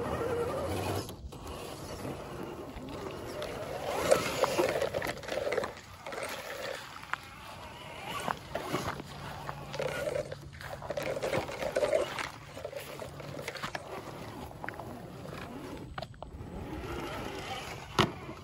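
Traxxas TRX-4 RC crawler driving over rough ground and through grass: uneven electric drivetrain noise, tyres scrabbling and grass brushing, with a few sharp knocks, the loudest near the end.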